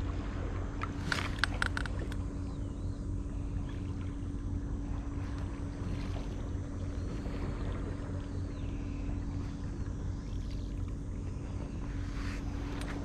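Low rumble of wind on the microphone with a steady faint hum, broken by a quick run of clicks about a second in.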